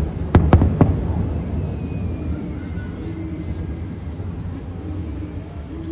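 Distant aerial firework shells bursting: three sharp bangs in quick succession within the first second. They are followed by a steady low background rumble.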